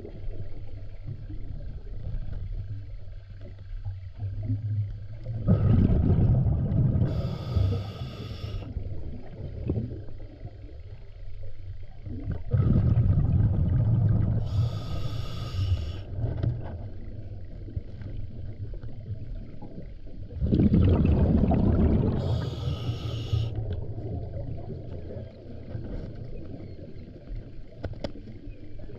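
A scuba diver breathing through a regulator underwater. There are three breaths about seven to eight seconds apart, each a low bubbling rush of exhaled air with a short high hiss from the regulator, over a steady low underwater rumble.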